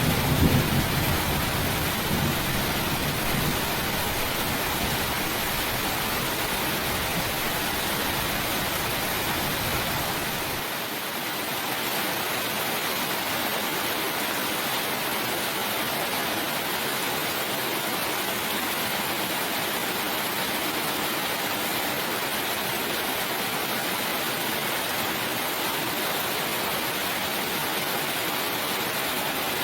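Steady heavy rain, a continuous even hiss, with the last of a thunder rumble fading out over the first few seconds. About eleven seconds in, the remaining low rumble drops away abruptly, leaving only the rain.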